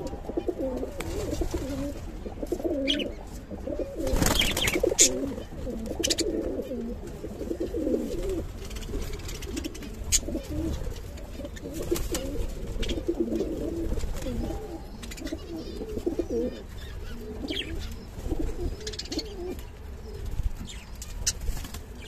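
Domestic pigeons cooing continuously, several birds overlapping, with occasional short high chirps from budgerigars.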